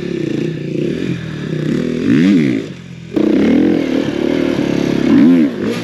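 Dirt bike engine running and being revved in sharp blips, its pitch rising and falling quickly twice, with a sudden jump in loudness about halfway through.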